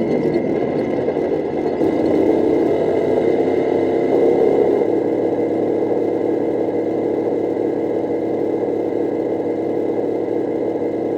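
Simulated tank engine sound from a Tamiya RC tank's sound unit, played through the model's small speaker at a high volume setting (20): the engine note rises as the throttle is opened about two seconds in, then settles back to a steady run. At this volume the speaker distorts, and the sound is probably not the best.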